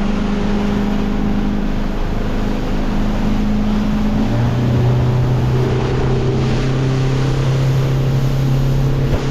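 Motorboat engine running at speed under way, with wind and water noise; the engine note drops to a lower, steady pitch about four seconds in.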